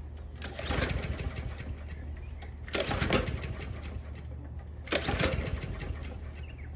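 Briggs & Stratton 163cc push-mower engine pull-started three times, about two seconds apart, each pull cranking it over in a rattling burst that dies away without the engine catching. This is the no-start fault that the owner traced to a dirty carburettor, since the engine would run on ether sprayed into the carb.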